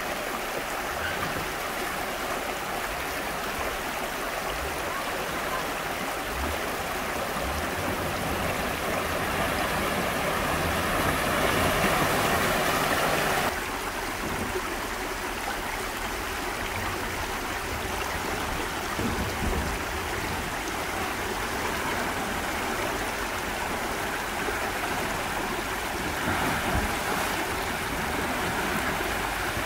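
Shallow stream water rushing steadily over rocks and small rapids, with a slight drop in level about halfway through.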